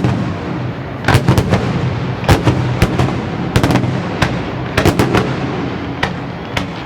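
Fireworks display: shells bursting in quick clusters of sharp bangs about every second, over a continuous echoing rumble of further detonations.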